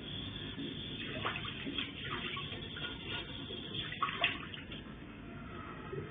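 Water running steadily, with a few light clicks or knocks of utensils.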